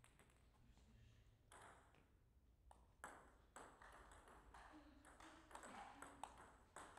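Faint, sharp clicks of a table tennis ball striking bats and bouncing on the table, sparse at first, then a rally from about three seconds in with a click roughly every half second to second.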